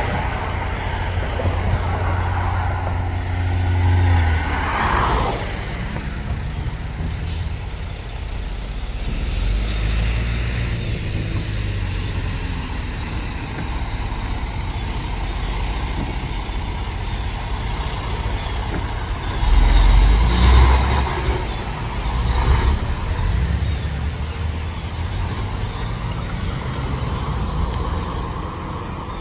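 Road traffic at an intersection: cars and trucks driving past, with louder rumbles from heavy vehicles passing about 3, 10 and 20 seconds in.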